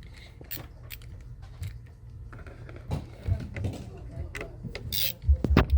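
Small clicks, taps and rattles of computer hardware being handled while a bracket is moved over, with a cluster of louder knocks near the end.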